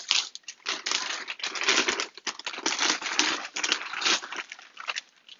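Clear plastic bag crinkling in irregular bursts as a helmet piece is worked out of it.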